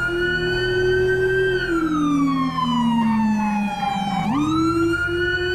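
Police escort siren wailing: the tone holds high, falls slowly for about three seconds, then rises quickly again about four seconds in and holds.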